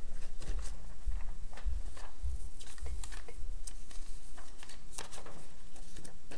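Irregular light clicks and soft thumps, a few a second, over a steady low hum.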